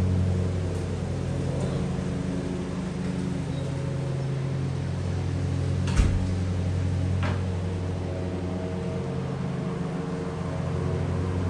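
Steady mechanical hum from a running machine, even in pitch throughout, with a single sharp knock about six seconds in.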